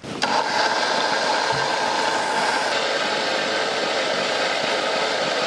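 Electric mixer grinder switched on, its motor running steadily at full speed as it blends a liquid milk mixture in its jar; it starts about a quarter second in.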